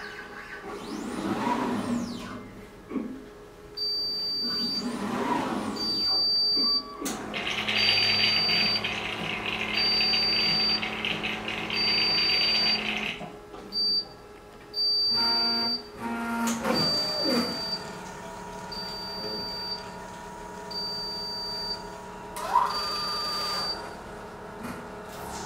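BIOBASE 2000 automated ELISA processor at work: its robotic arm and plate-carrier motors whir in rising and falling whines as they move. A short high beep repeats about every second and a half through most of it, and a rushing hiss with a low hum runs for several seconds in the middle.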